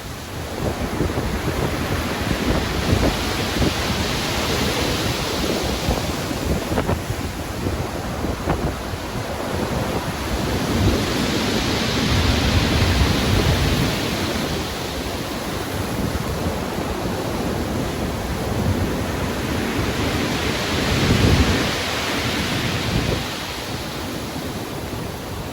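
Stormy sea: ocean waves breaking and washing in over a continuous low rumble, with wind. The hiss of the surf swells and fades three times, about every eight seconds.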